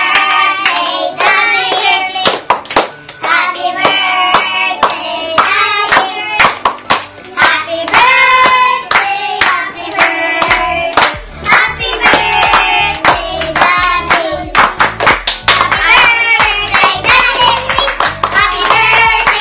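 Singing over music with hand clapping; a low bass beat comes in about halfway through.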